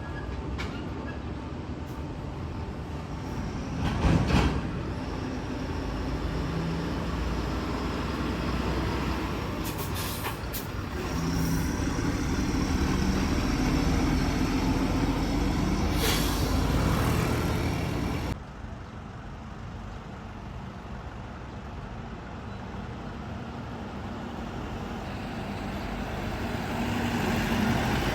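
Diesel trucks and buses running past on a street, with a loud sudden sound about four seconds in and a few short hisses like air brakes. Around two-thirds of the way through the sound drops abruptly to quieter traffic, which builds again near the end.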